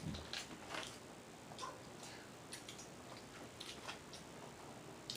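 Faint eating sounds close to the microphone while eating a snow crab and shrimp boil: soft, irregular clicks and smacks, about two a second.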